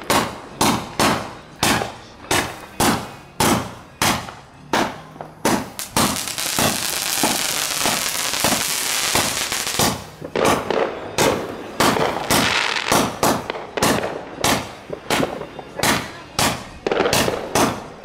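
Phantom Fireworks Vapor Trails 96-shot consumer firework cake firing in rapid succession, sharp shots about two or three a second. In the middle a dense crackling runs unbroken for about four seconds, then the single shots resume.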